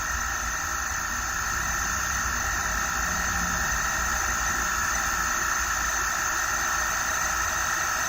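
Inverter air conditioner compressor running with the strange, steady high-pitched noise of its fault: the controller board's EEPROM holds data for a different compressor model, so the board cannot drive it properly.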